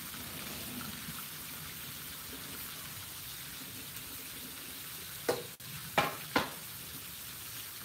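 Bacon strips and burger patties sizzling on a Blackstone flat-top griddle: a steady frying hiss. Three short louder sounds break in between about five and six and a half seconds in.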